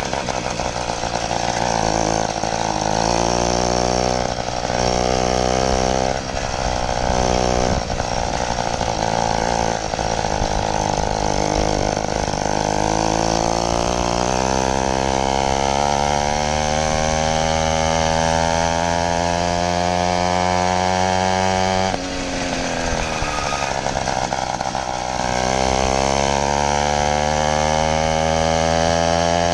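80cc two-stroke motorized-bicycle engine running under way with a buzzing note that climbs in pitch as the bike gathers speed. Its pitch drops suddenly about two-thirds of the way through, then climbs again.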